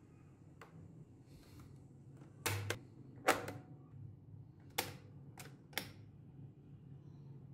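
Plastic piano-key buttons of a Playskool toy cassette recorder being pressed and latching, about seven sharp clacks between two and a half and six seconds in, the loudest a little past three seconds.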